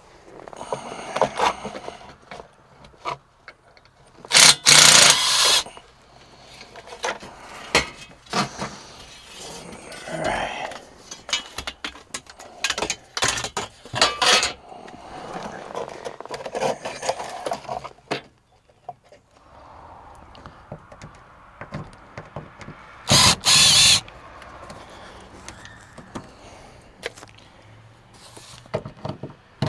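Cordless drill/driver run in short bursts to drive out screws, with one loud burst about four seconds in and another about three-quarters of the way through. Between the bursts there are scattered clicks and knocks from handling the tool, screws and panels.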